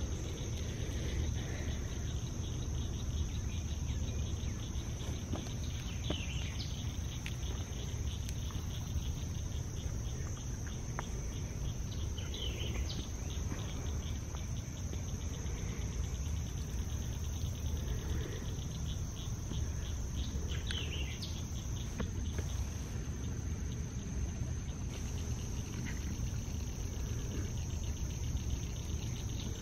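Steady insect chorus: a constant high drone with rapid pulsed trilling beneath it. A bird gives a short, falling call three times, about six seconds apart, over a steady low rumble.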